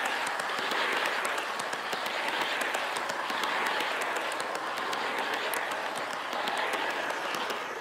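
HO scale Metrolink bi-level passenger cars rolling close by on Kato UniTrack: a steady rattling rumble of plastic wheels and cars on the track, dotted with small clicks. It swells and fades about once a second as each car goes by.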